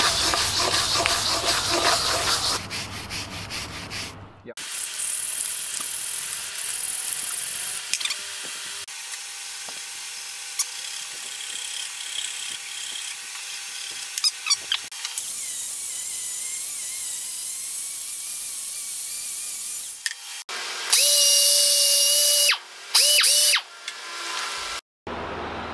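Cleaning the rusted cast-iron table of an RF-30 mill drill. First an abrasive pad rubs back and forth over the wet metal. After a cut come quieter working sounds with a few sharp clicks. Near the end a power tool runs at a steady speed for about a second and a half, then briefly once more, and this is the loudest part.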